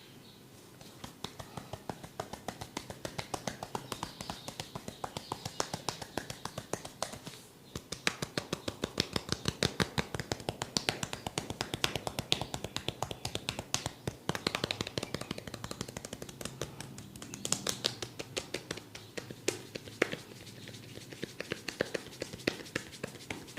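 Rapid percussive tapping of a head massage: fast, sharp taps, several a second, in runs broken by a few short pauses.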